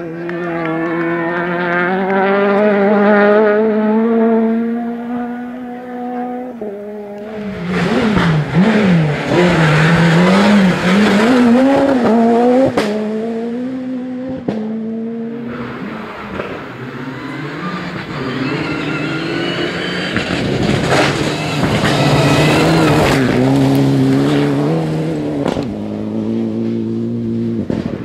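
Several rally cars at full throttle on a gravel stage, passing one after another. Their engines rev high, dropping and climbing again with gear changes and lifts, while loose gravel scrabbles and sprays under the tyres.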